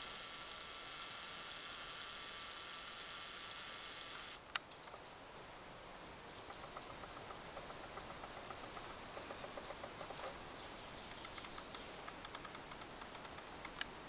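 Woodland ambience with small birds chirping in short bursts of three or four notes. A steady high buzz cuts off with a click about four seconds in, and a quick run of sharp ticks comes near the end.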